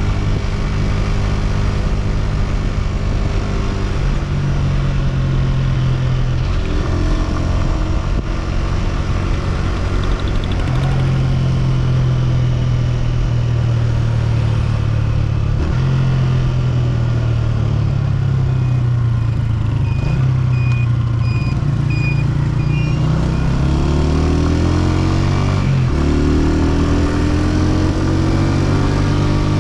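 Honda CG125's single-cylinder four-stroke engine running under way, its pitch holding and shifting with throttle and gear changes. Near the end it rises twice in pitch as the bike accelerates up through the gears.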